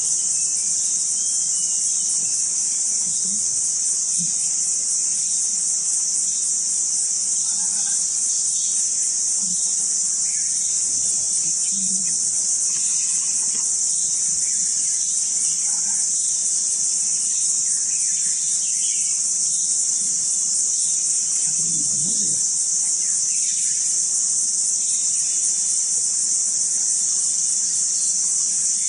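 Forest insect chorus: a loud, steady, high-pitched buzz that does not let up, with faint scattered short calls beneath it.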